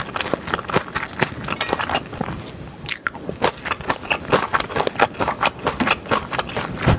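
Close-miked eating of spicy stir-fried yakisoba noodles: a run of wet chewing and mouth smacks, with a utensil scraping and clicking on the dishes and one sharp click about three seconds in.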